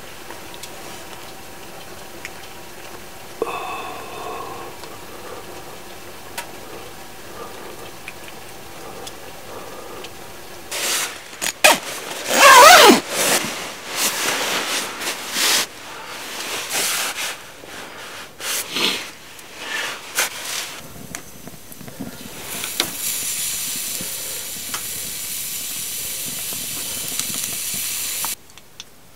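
A down sleeping bag's nylon shell rustling as someone shifts and settles inside it. The rustling is loudest with a rasping pass about twelve seconds in. Before it there is a quiet steady background with one brief clink; after it comes a steady high hiss that cuts off suddenly near the end.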